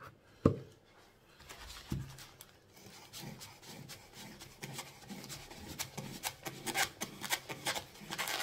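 A sharp knock about half a second in, then a long knife sawing into a compressed coconut-coir brick: repeated rasping strokes, a few a second, getting louder toward the end.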